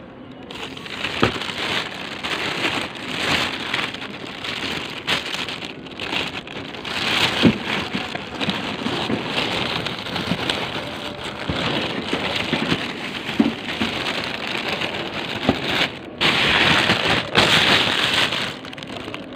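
Rustling and crackling handling noise on the phone's microphone as it is moved about, with a few sharp knocks, loudest for a couple of seconds near the end.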